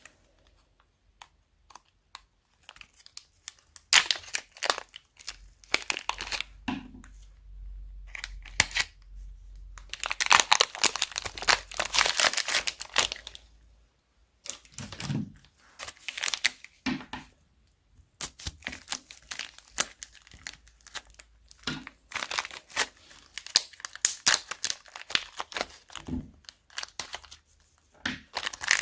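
Plastic bags crinkling and crackling in bursts as they are squeezed and handled, with a few soft low thuds between.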